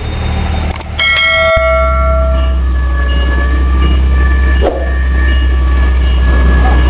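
A click and a bell-like 'ding' chime that rings out and fades over about a second, from a subscribe-button notification effect. It is followed by a forklift's engine running with a steady low drone as it lifts another forklift.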